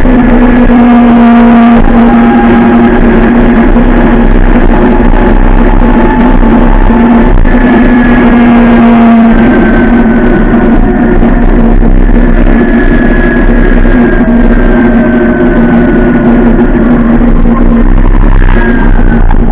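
Zero S 11 kW electric motorcycle's motor whining under way: a steady hum with higher tones that slowly fall in pitch as speed changes, over heavy wind rumble on the microphone.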